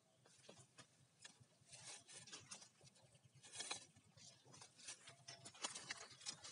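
Near silence with faint, scattered rustles and ticks.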